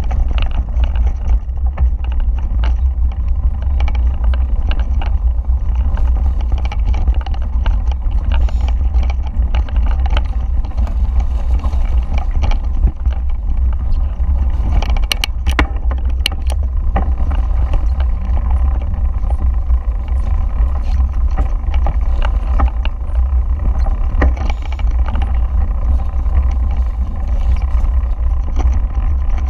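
Mountain bike riding fast over a rough dirt trail: a steady low rumble of wind and buffeting on the camera's microphone, with constant rattling from the bike and tyres on the ground and a few sharp clicks about halfway through.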